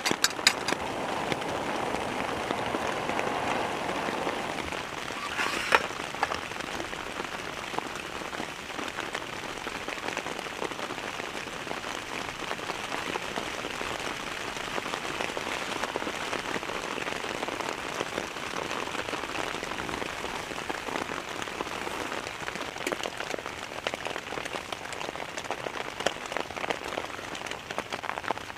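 Heavy rain falling steadily, dense drops hitting a surface, with a few sharper knocks at the very start and about five and a half seconds in.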